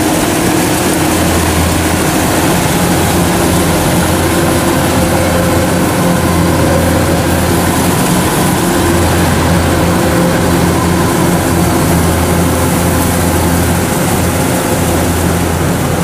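Kubota DC105X combine harvester's diesel engine running steadily, a constant loud low drone.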